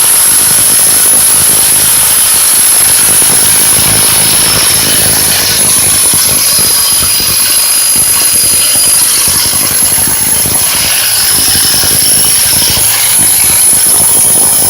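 Bauer 10-amp SDS rotary hammer in hammer-drill mode, driving an inch-wide SDS bit into concrete: a loud, steady hammering noise with a high whine over it.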